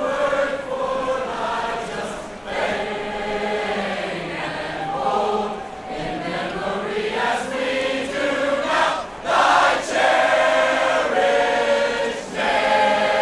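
A marching band's members singing together as one large choir, slow held notes led by a conductor. The singing swells loudest a little past the middle.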